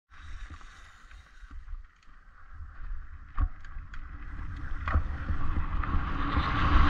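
Downhill mountain bike rolling down a dry dirt-and-gravel track: wind buffeting on a helmet camera's microphone and tyre rumble that grow steadily louder as the bike gathers speed, with a few sharp clicks and knocks from the bike over the bumps.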